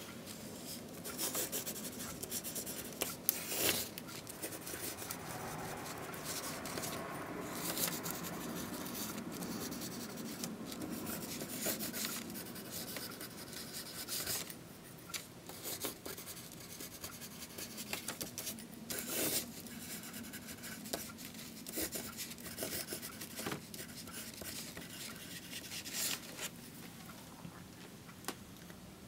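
A pen scratching across paper as words are written by hand in cursive: an irregular run of short scratchy strokes.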